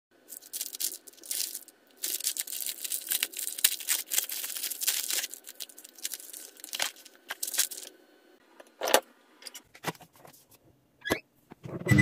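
Thin plastic overwrap of a paper microwave popcorn bag crinkling and tearing as it is pulled off and the bag is handled, in irregular crackly bursts for about eight seconds. A few separate clicks or taps follow near the end.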